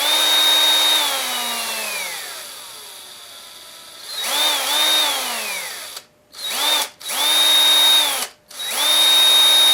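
Craftsman 19.2-volt cordless drill's brushed motor whining up to full speed and back down as the trigger is squeezed and released, five times: the first two runs wind down slowly, the last three are shorter and stop abruptly.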